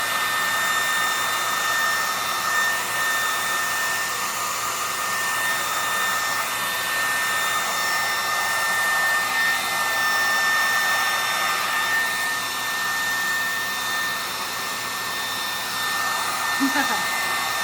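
Hair dryer running steadily, a continuous rush of air with a high steady whine over it, used to push alcohol ink across a painting.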